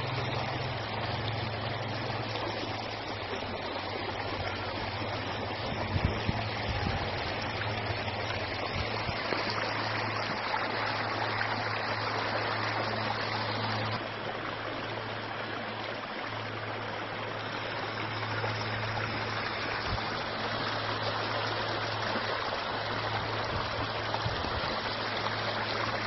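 Water flowing steadily along a small irrigation channel, an even rushing burble, with a steady low hum underneath.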